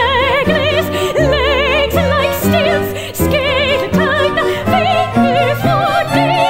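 Operatic soprano singing a run of short notes with a wide vibrato, over a small instrumental ensemble holding low notes beneath her.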